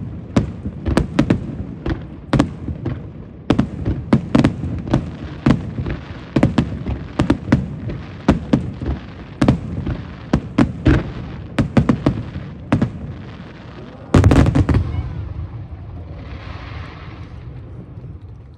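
Aerial fireworks display: a rapid barrage of shell bursts, sharp cracks with booming tails, building to one loudest burst about fourteen seconds in, then a rumble that dies away.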